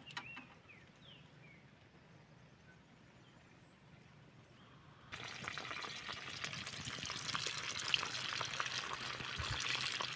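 Whole lambari frying in hot oil in a small pan over a campfire: a dense sizzle with many small crackles and pops, starting suddenly about five seconds in after near quiet.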